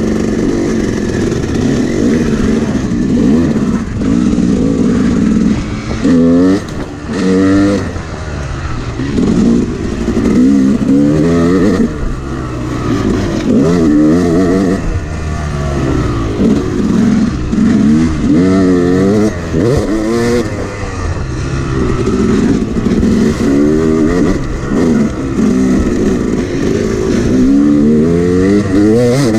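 Yamaha YZ250X two-stroke dirt bike engine being ridden, revving up and down over and over, its pitch rising sharply with each twist of the throttle and dropping off between.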